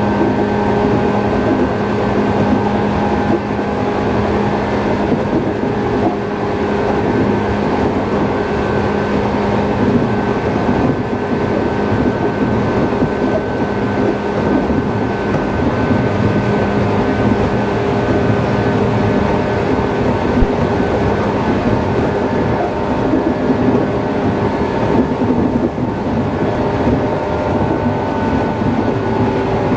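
Running sound inside a JR East 113 series electric multiple unit motor car at a steady speed. A steady whine from the MT54 traction motors and gears sits over the rumble of the wheels on the rails. A flat spot worn on one of the car's wheels adds its knock to the running noise.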